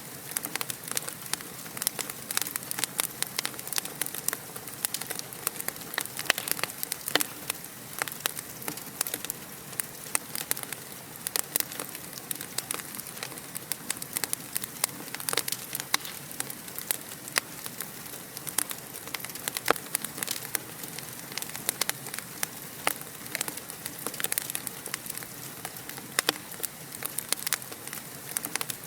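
Fire crackling in a fireplace: dense, irregular sharp pops and snaps over a steady hiss.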